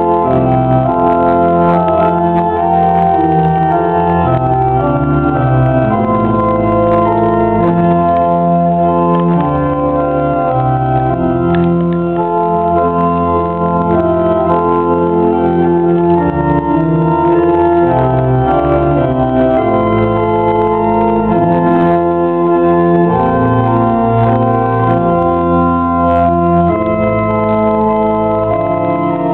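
Church organ playing a hymn in full, held chords over a bass line, the harmony changing every second or two.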